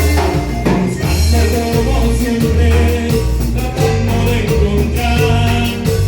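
Latin dance-band music with singing over a driving bass line and full band.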